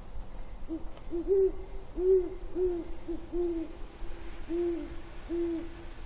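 Great horned owl hooting: a series of deep, soft hoots, several in quick succession a second or so in, then more widely spaced ones.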